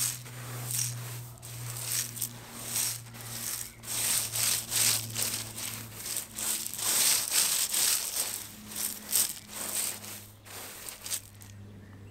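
Gloved hands scraping, scooping and spreading fine crushed gravel in a run of irregular crunching scrapes, busiest around the middle.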